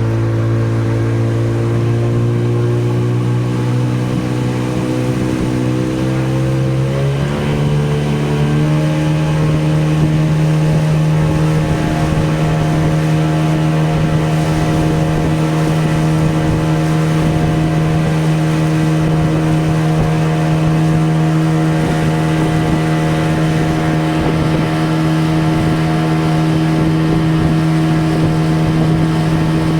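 Tour boat's engine running steadily, then speeding up about seven seconds in, its hum rising in pitch and holding at the higher note.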